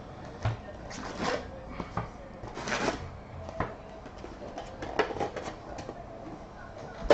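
Sealed trading-card foil packs and their cardboard box being handled on a table: packs slid out, rustling, and set down in stacks with scattered light taps and clicks, and a sharper click near the end.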